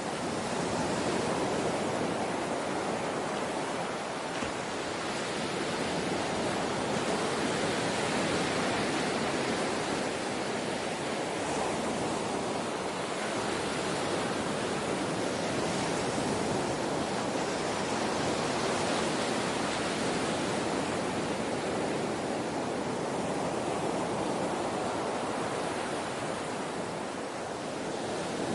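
Steady rushing of water, a dense even wash that swells and eases gently, with slight dips about four seconds in and near the end.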